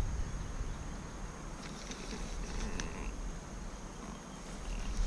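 Insects buzzing steadily as a thin high drone, with a few soft clicks about two to three seconds in.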